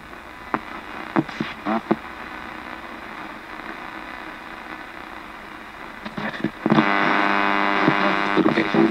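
A ghost-box radio sweeping through stations: steady static hiss broken by short clicks and clipped snippets of broadcast sound. About seven seconds in, a louder buzzing tone sounds for about two seconds.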